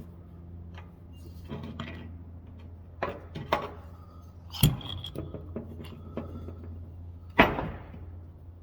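Clatter of metal tools and parts being handled, with two sharp, loud knocks, one just before halfway and one near the end, over a steady low hum.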